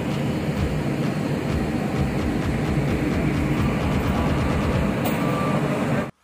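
Steady low rumble of heavy engines running, with a dense din over it, cutting off abruptly near the end.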